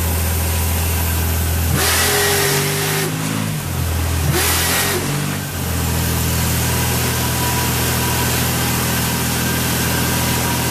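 An engine running steadily with a low hum, revving up about two seconds in, with a hiss over it, and settling back to its steady idle after about five seconds.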